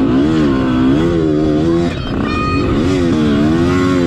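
Motorcycle engine revving up and down over and over, its pitch rising and falling several times, easing off briefly about two seconds in before revving again.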